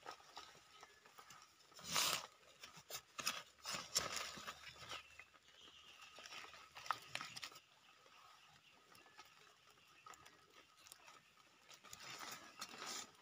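Rustling and crackling of dry leaves, fern fronds and soil as a large termite mushroom is pulled up by hand, in scattered short bursts with a quieter stretch in the middle.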